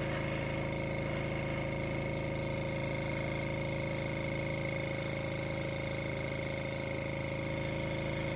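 Airbrush driven by an air compressor blowing a steady stream of air over wet acrylic paint, a continuous hiss with a steady hum beneath it.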